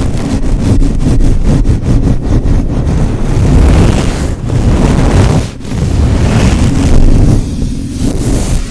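Close-up rubbing on or right against a microphone: a loud, rough, continuous noise with heavy rumble and rapid crackle, easing briefly about five and a half seconds in.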